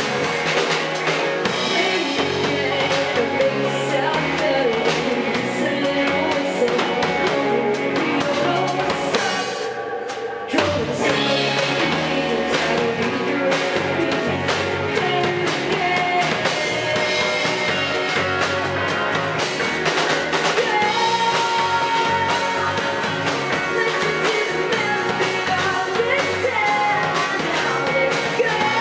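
Live rock band playing: female lead vocals over electric guitars, bass guitar and drum kit. The band thins out briefly just before ten seconds in, then comes back in on a loud hit.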